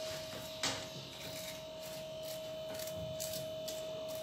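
Small kitchen knife peeling and cutting a piece of squash held in the hand: soft scrapes and light clicks, with one sharp click about half a second in. A steady hum runs underneath.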